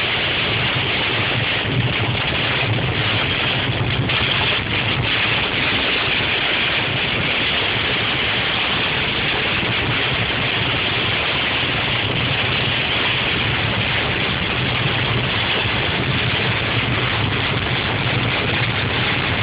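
Heavy rain beating on a car's roof and windscreen, heard from inside the moving car: a dense, steady hiss over the low hum of the engine and tyres.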